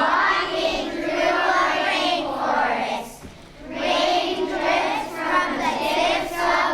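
A group of children singing together in long held phrases, with a short break for breath about three seconds in.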